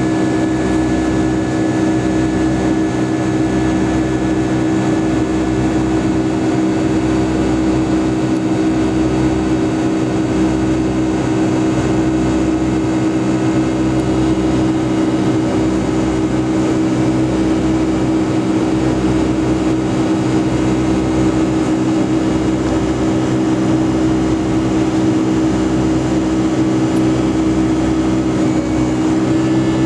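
Boeing 757-232's Pratt & Whitney PW2000-series turbofan engines heard from inside the cabin over the wing during the climb after takeoff: a loud, steady engine drone with a strong hum and a low throb pulsing about once a second, over a steady rush of air.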